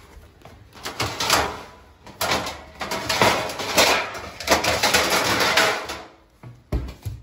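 Metal baking pans scraping and clattering against each other and the wooden dividers as one is pulled out of an upright pan rack in a kitchen cabinet. Near the end comes one short low thump, the cabinet door being shut.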